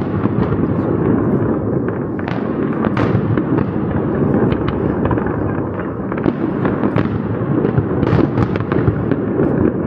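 Fireworks display: aerial shells bursting overhead in a continuous low rumble, with many sharp bangs and crackles scattered throughout.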